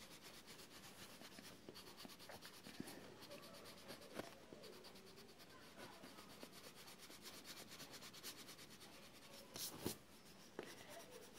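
Faint scratch of a colourless blender pencil stroked back and forth over layered colored pencil on paper, blending the colours, with a sharper tick about four seconds in and another near the end.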